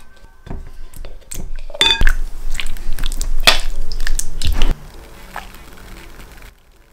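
Silicone spatula breaking up and working a block of mascarpone in a glass bowl: irregular knocks and scrapes against the glass, stopping about two-thirds of the way in.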